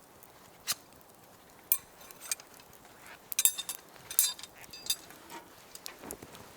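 Metal camping gear clinking as it is handled, a handful of sharp clinks with brief ringing, bunched in the middle.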